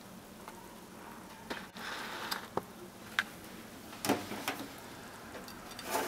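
Quiet room tone with about seven light, irregular clicks and taps, the sharpest a little after the middle and a short cluster at the end.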